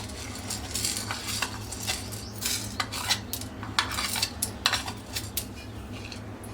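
A metal spoon clinking and scraping against a pan in an irregular series of light clicks as black pepper is spooned in.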